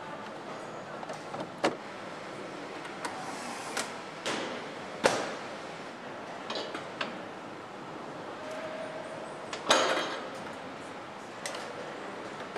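Motorcycle assembly-line factory noise: a steady background hum with scattered clicks and knocks of parts and tools, a sharp knock about five seconds in and a louder clatter near the end.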